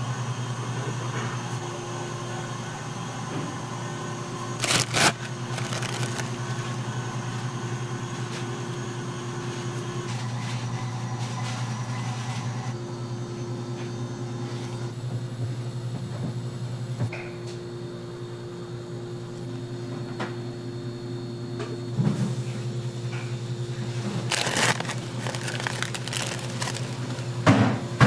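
Gloved hands laying processed cheese slices onto a stainless-steel tray of steamed rice cake, with soft handling rustles and a few brief louder scuffs, the first about five seconds in and several near the end. A steady low machine hum runs underneath.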